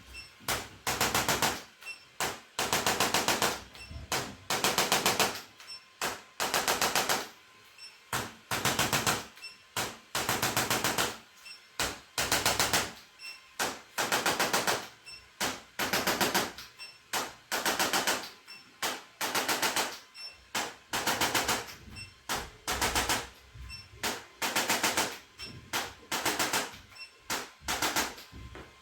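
Handheld electric percussion massager run in repeated short bursts of rapid pulsing, each about half a second to a second long, with short gaps between.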